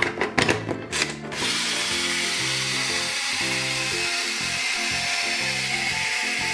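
Hello Kitty toy toaster: plastic clicks as the toast slice goes in and is pushed down, then a steady hiss from about a second in as the toaster holds the toast down before popping it up.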